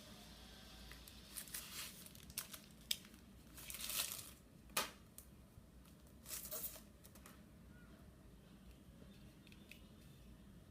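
Packaging being torn open and handled during an unboxing: a series of short rustling, tearing noises and a few sharp clicks, the longest burst near the middle, then faint room noise.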